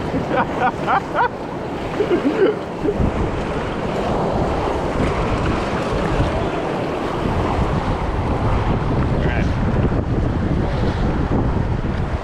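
Rushing river whitewater around a raft in a high-water rapid, with wind buffeting the microphone. Short shouts come in the first couple of seconds.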